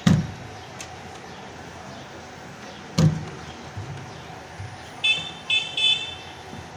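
Street background noise with three short horn toots about five seconds in. Two dull thumps stand out, one at the start and one about three seconds in.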